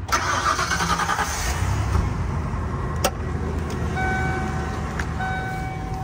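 A 1993 Ford Thunderbird's 5.0-litre HO V8 cranking and catching, then settling into a steady idle. About four seconds in, a steady electronic warning chime starts sounding alongside it.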